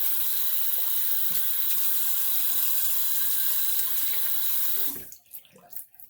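Water running from a tap into a sink, steady and strong, then shut off about five seconds in, followed by a few faint small knocks.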